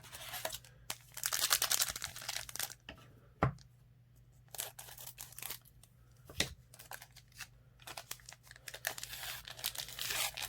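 Trading-card pack wrapper crinkling and tearing in two stretches of rustling, with two single light knocks in between.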